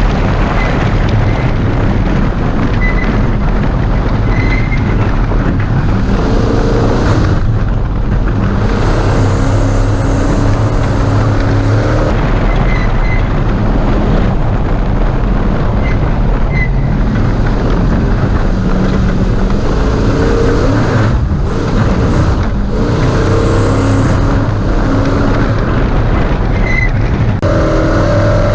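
Ford Ranger desert race truck at speed: a loud engine under a heavy rumble, its pitch rising and falling several times as it accelerates and lifts off.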